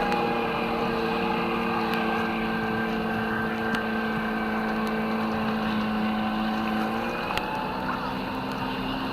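An engine running steadily with a constant hum over a rushing noise, its pitch settling a little lower about seven seconds in.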